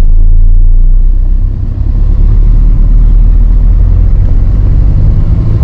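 Car moving slowly, heard from inside the cabin: a loud, steady low engine and road rumble that dips briefly about a second and a half in.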